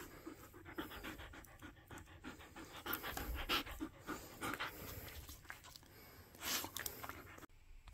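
Siberian husky panting quickly and evenly, about four to five breaths a second, with a few louder breaths along the way.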